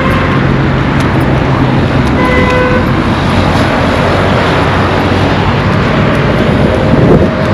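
Road traffic passing, with one short car horn toot a little over two seconds in.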